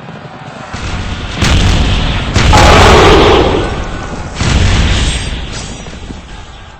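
Loud, deep booming rumble that swells in several surges, loudest about three seconds in, then dies away near the end.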